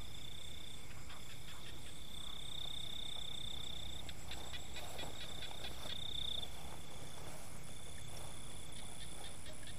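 Crickets trilling in a steady high tone, with a run of quick pulses about halfway through.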